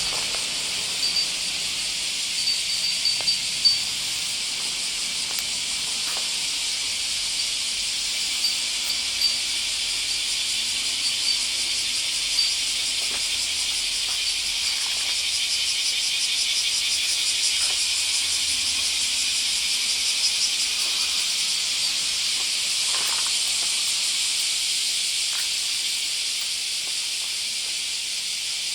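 Chorus of cicadas in full summer song: a dense, steady, high buzzing hiss that swells a little in the middle and eases slightly near the end. A few small clicks sit on top of it in the first half.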